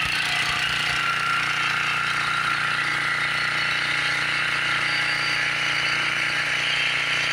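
Three-horsepower Briggs & Stratton engine on a McCulloch H1500 portable generator running steadily.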